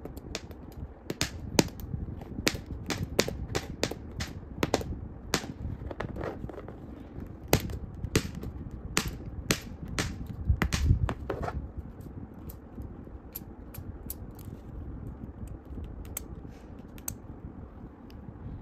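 Scalpel blade cutting and shaving bits off the hard plastic collar of an action figure: irregular sharp clicks and ticks, thick for about twelve seconds and then thinning out, over soft handling noise.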